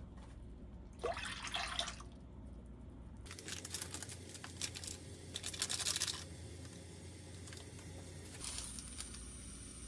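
Liquid poured into a metal frying pan of tomato juice: a short pour about a second in, then a longer splashing pour from about three to six seconds.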